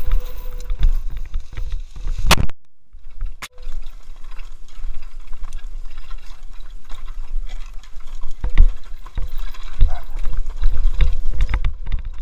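Mountain bike descending a rough dirt forest trail, heard from a helmet-mounted camera: wind rumbling on the microphone over a constant rattle and knocking of the bike over bumps and roots. Just after two seconds in there is a sharp loud knock, then the sound nearly drops out for about a second before the riding noise returns.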